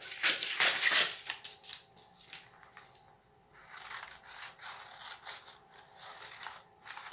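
Scissors cutting through a double layer of folded brown kraft paper: a run of crisp snips with paper rustling. The loudest cuts come in the first second, then quieter, irregular snips and handling of the paper.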